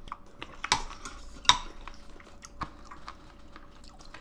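Metal chopsticks and spoon clicking and clinking against bowls and a pot during a meal: scattered light clicks, with two sharper clinks about three-quarters of a second and a second and a half in.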